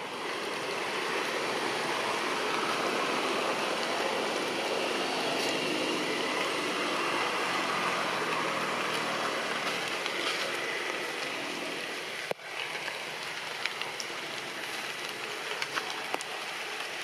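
Steady rain falling on tree foliage, a constant hiss with a few sharper drips near the end. The sound cuts out for an instant about twelve seconds in.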